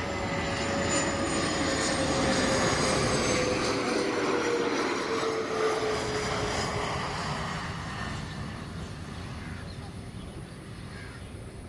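Twin-engine business jet's turbofans on landing approach, passing low: a rumble with a high whine that builds over the first few seconds. The whine's pitch drops as the jet goes by, and the sound then fades away.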